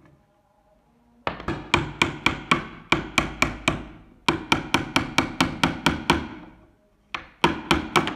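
Hammer tapping a punch to drive a rusty steel pin out of a Mauser Kar98k rifle's wooden stock. The taps are quick and sharp, about four a second, in three runs with short pauses between.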